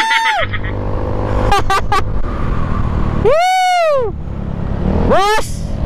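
Motorcycle engine and wind noise while riding. Over it come a few short, high-pitched calls that rise and fall in pitch, the longest about three and a half seconds in.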